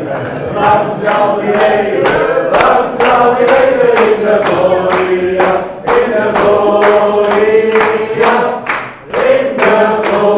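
A congregation singing a birthday song together, clapping along in time.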